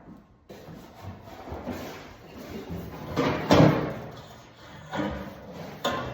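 Handling noise with several knocks and bumps: a loud knock about three and a half seconds in, and sharper knocks near five and six seconds.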